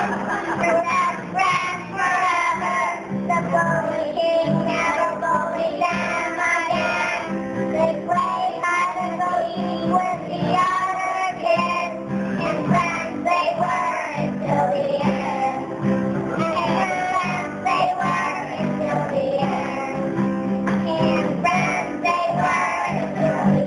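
A group of young children singing a song together to musical accompaniment.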